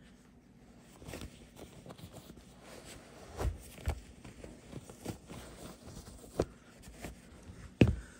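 Footsteps of leather cowboy boots shifting and stepping on a rug and hard plank floor: soft scuffs with irregular heel knocks, a few louder ones, the loudest near the end.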